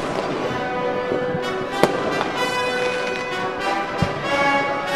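Orchestral music led by brass, with a sharp crack about two seconds in and a deep thud near the end.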